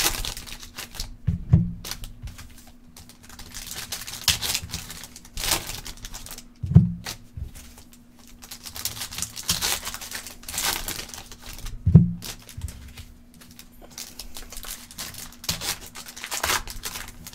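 Foil trading-card packs (Panini Contenders Basketball) being torn open, the wrappers crinkling and rustling in the hands, with a few dull knocks spread through.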